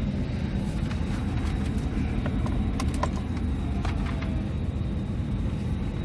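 Steady low rumble of an idling SUV heard from inside its cabin, with a few faint clicks in the middle.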